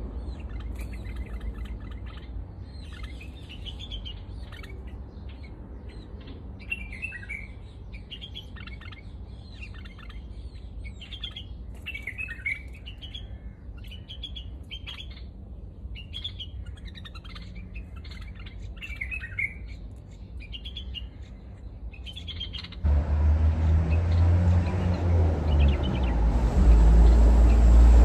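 Small birds chirping in many short, quick calls over a low steady hum. About 23 seconds in, the chirps give way to a much louder low rumble.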